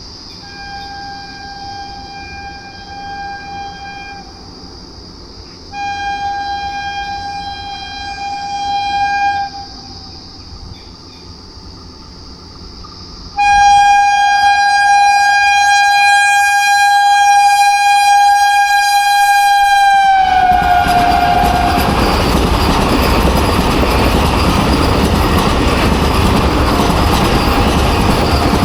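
Vande Bharat Express electric train sounding its horn three times as it approaches. The third blast is long and loud and drops in pitch at its end as the train reaches the listener. The loud rush and rumble of the train running past follows.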